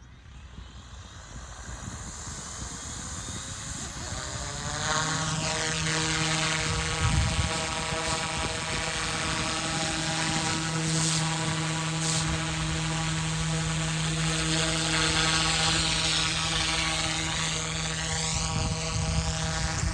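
OMP M2 mini electric RC helicopter spooling up: the motor and rotor whine rises in pitch and loudness over the first few seconds, then runs at a steady pitch, wavering up and down in the last few seconds.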